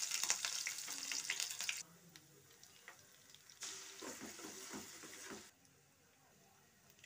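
Hot oil sizzling loudly in a stainless steel kadai around a bay leaf and whole spices, dying down after about two seconds. About three and a half seconds in, chopped ginger and garlic sizzle in the oil for about two seconds while a spoon scrapes and stirs them round the pan.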